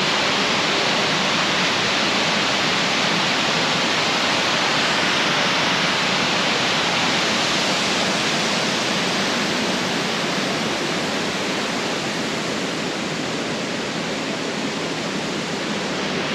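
Long Creek Falls, a mountain waterfall, giving a steady rush of falling water, growing slightly fainter in the second half.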